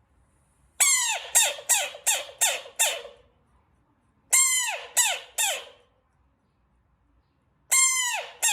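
Frog calls in three runs, about six short calls, then three, then two, each call dropping in pitch.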